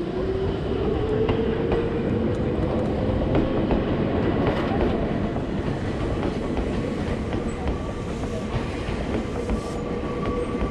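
Electric train running through the station with wheel and rail rumble and clickety-clack. A motor whine rises in pitch over the first two seconds, then holds steady, with a fainter higher tone joining later.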